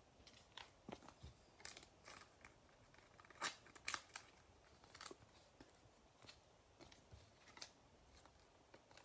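Faint, scattered clicks and ticks of baseball trading cards being handled, slid and set down by hand, with two louder snaps about three and a half and four seconds in.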